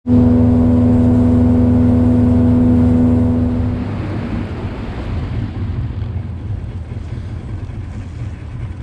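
An engine running at a steady pitch, which drops away about four seconds in, leaving an uneven low rumble.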